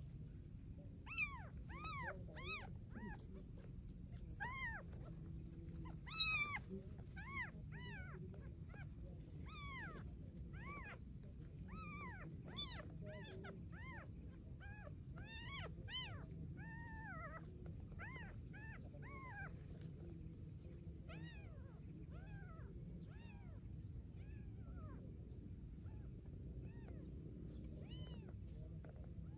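A newborn kitten mewing over and over in short, high-pitched cries, one or two a second. The cries grow fainter and sparser near the end.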